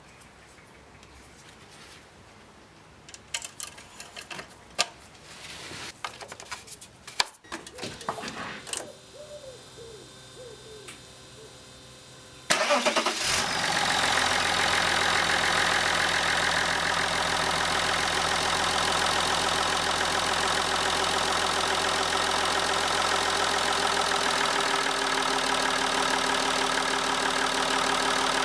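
A few clicks and knocks, then about halfway through the Opel Omega's 2.5-litre Y25DT straight-six turbodiesel cranks, catches at once and settles into a steady idle, likely its first start on fresh oil after the oil change. Near the end the deep part of the idle note drops away.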